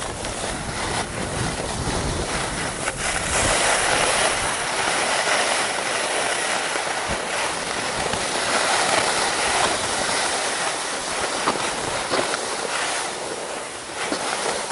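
Skis sliding and scraping over groomed snow on a downhill run: a steady rushing hiss that eases briefly near the end.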